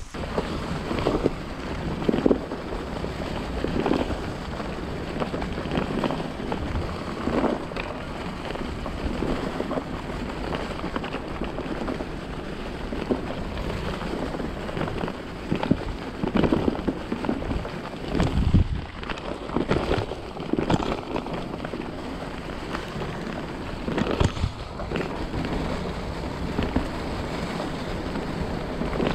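Mountain bike ridden fast down a leaf-covered forest trail: a steady rush of wind on the microphone with tyre noise over leaves and dirt, broken by repeated knocks and rattles as the bike goes over bumps.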